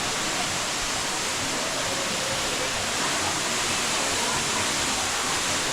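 Waterfall pouring close by, a steady, even rush of falling water.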